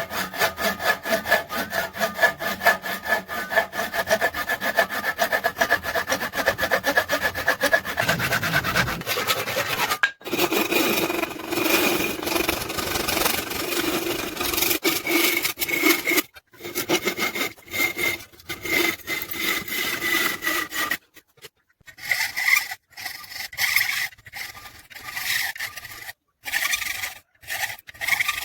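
A hand tool is worked back and forth in quick, even strokes, giving a rasping sawing sound with a faint steady ringing tone under it. About twenty seconds in it stops briefly, then comes back in shorter bursts.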